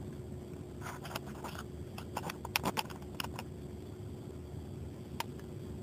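Handling noise from a handheld camera being moved: a flurry of small clicks and rustles from about one second in to about three and a half seconds in, then one more click near the end, over a steady low room hum.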